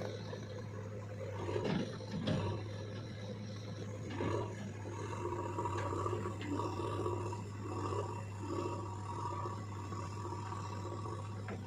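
JCB 3DX backhoe loader's diesel engine running under load, with a steady low hum and a wavering whine above it. A few sharp knocks sound at about 2 and 4 seconds in.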